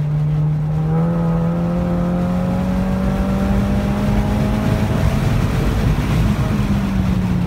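2015 VW GTI Mk7's turbocharged 2.0-litre four-cylinder, fitted with a Golf R turbo, heard from inside the cabin pulling at full throttle in third gear. Its pitch rises steadily for several seconds toward the redline, then falls as the throttle lifts near the end.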